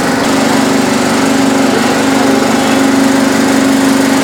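Grading machine running with its brush roller turning, giving a loud, steady mechanical hum with one constant low tone.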